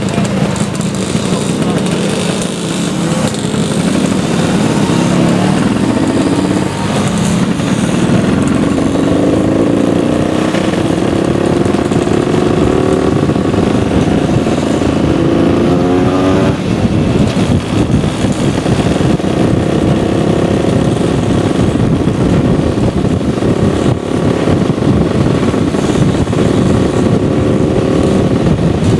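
Motor scooter engine running under way, with wind rushing over a helmet-mounted microphone. The engine note climbs steadily in pitch from about eight seconds in, then drops suddenly about halfway through.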